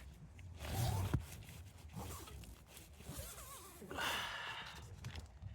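Short rustles as a packaged choc-chip brunch bar is handled: one brief rustle about a second in and a longer, louder one about four seconds in.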